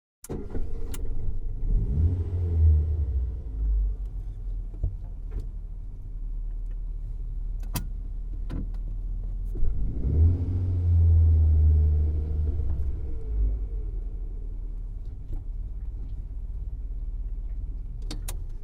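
Ford Fiesta car engine running while driving, its low engine note swelling twice as it accelerates and eases off, with a few sharp clicks along the way.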